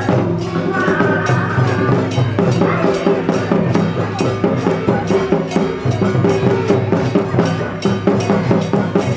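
Traditional temple percussion music: drums and clappers or cymbals beating a fast, steady rhythm of about three to four strokes a second, with sustained lower tones under it and a short melodic line about a second in.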